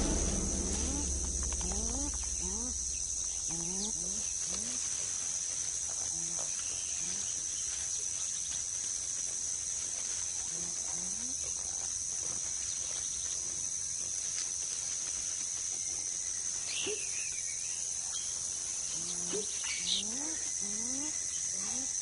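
Rainforest ambience: a steady high-pitched drone of insects, with short, low, rising animal calls repeated every second or two and a few higher bird calls near the end.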